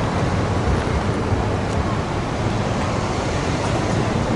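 Steady road traffic: cars and SUVs driving past on a busy road, a continuous low rumble of tyres and engines.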